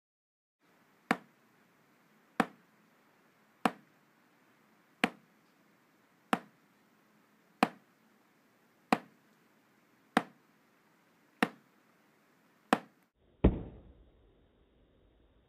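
A wooden drumstick striking a drum practice pad in slow, even single strokes, one sharp tap about every 1.3 seconds, ten in all. Near the end comes one louder stroke with a deeper, longer decay.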